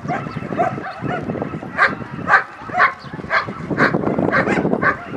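A dog barking repeatedly, about two barks a second, over a steady murmur of crowd noise.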